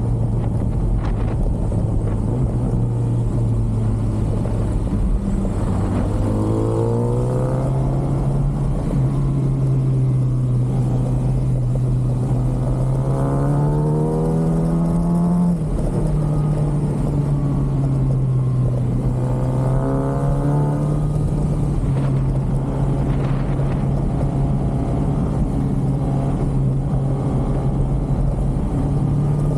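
Kawasaki ZX-6R's inline-four engine on its stock exhaust, heard while riding, over wind noise. The engine note rises in pitch on accelerations about 6, 13 and 20 seconds in, and drops sharply once, about 15 seconds in, as a gear change would.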